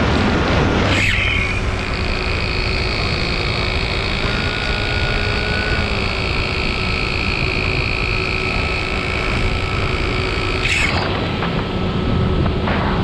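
Multirotor camera drone's motors and propellers whining steadily, several tones held together, with a low wind rumble on the microphone and brief rushes of noise about a second in and again near the end.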